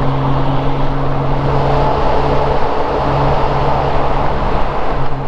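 Honda Gold Wing GL1500's flat-six engine running steadily at cruising speed, with wind and road noise rushing over it.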